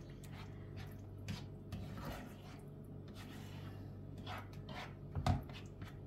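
Eggplant and tomatoes stewing in a pan on a low gas flame, giving faint irregular pops and ticks over a steady low hum, with a few louder pops near the end.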